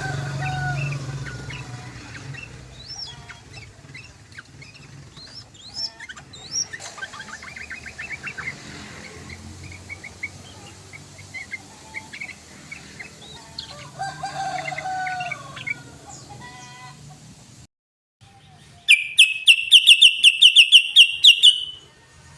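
Sooty-headed bulbul (trucukan) song: varied chirps and short warbled phrases. After a brief break near the end comes a loud, rapid trill of about fifteen notes lasting some three seconds.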